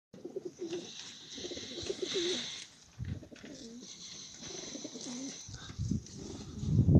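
Young racing pigeons cooing, several short rolling coos overlapping. A louder rushing noise builds near the end.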